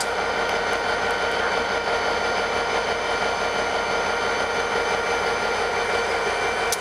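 Diesel engine of an ex-Conrail EMD SD50 locomotive running as the unit moves slowly past: a steady engine noise with several constant high tones, and a short click near the end.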